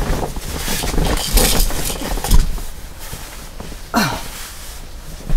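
Rustling and shuffling of an air mattress and bedding being handled, with a short groan falling in pitch about four seconds in.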